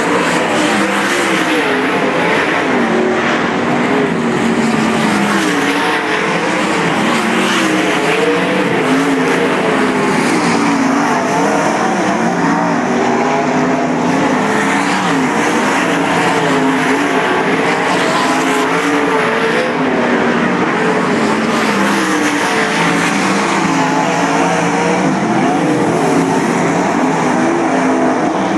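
Winged sprint cars' V8 engines at racing speed on a dirt oval. The engine pitch rises and falls continuously as they accelerate out of the turns and lift off into them.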